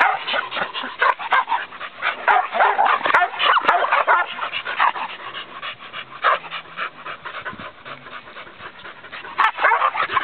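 Dog barking in quick, continuous volleys, easing off about halfway through and picking up again near the end.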